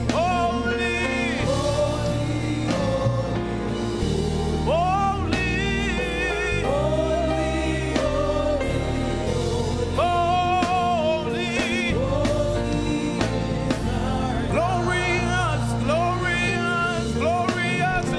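Gospel praise-and-worship singing backed by a band: voices hold long notes with vibrato and slide between pitches over a steady bass and chords.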